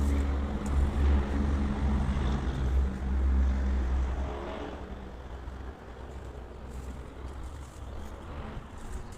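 Low engine rumble of a motor vehicle, loud for the first four seconds or so, then fading to a quieter background.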